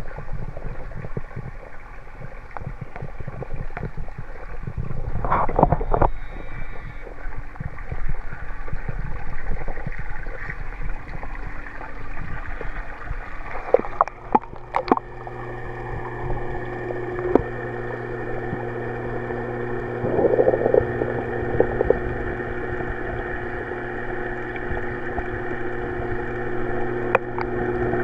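Water sloshing and handling noise from a camera being moved through a koi pond, with a few sharp knocks about halfway through as it goes under. From then on a steady, muffled hum is heard through the water.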